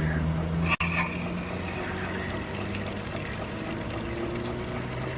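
A vehicle engine idling steadily, with a short hissing burst just under a second in.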